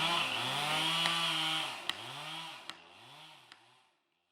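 Chainsaw revving up and down several times, with a few sharp clicks, fading out near the end.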